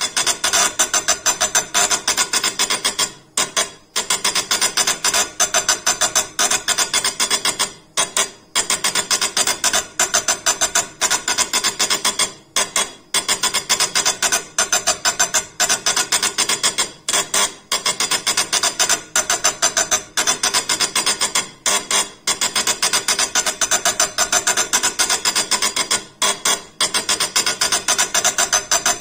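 Magnum 3 impact engraving machine striking a granite slab: a rapid, even run of tapping hammer strikes that pauses for a moment about every four and a half seconds.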